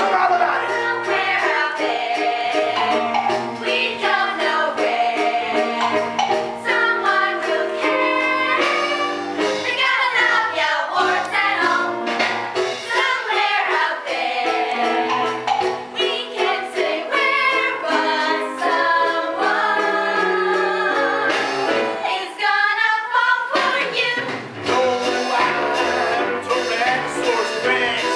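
Musical-theatre song: voices singing a show number over instrumental accompaniment with a beat.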